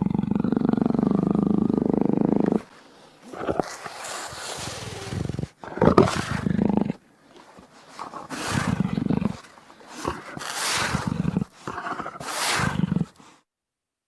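Jaguar calling: one long, deep growl lasting about two and a half seconds, followed by five shorter roars in a row.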